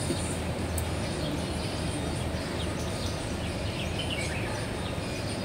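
Outdoor city ambience: a steady low hum of background noise with a few short bird chirps a little after the middle.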